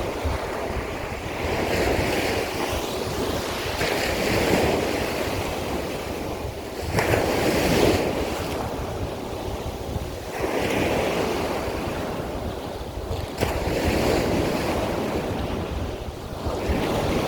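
Sea of Azov waves breaking and washing in, swelling and ebbing every few seconds, with wind rumbling on the microphone.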